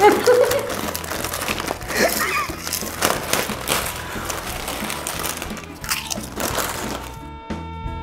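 Foil potato-chip packets crinkling as they are torn open and rummaged through, with chips crunching. Light guitar background music comes in near the end.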